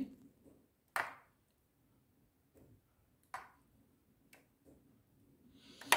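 A few light clicks of a spoon tapping against the steel idli mould plate and the batter bowl as thick semolina batter is spooned into the cups, the sharpest about a second in.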